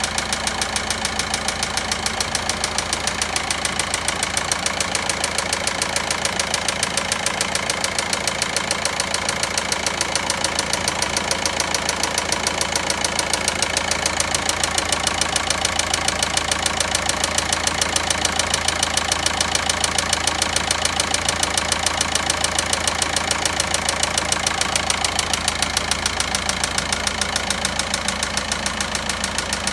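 Volkswagen Passat 1.9 four-cylinder diesel engine running steadily at idle with an even, rhythmic knocking: the engine noise being diagnosed.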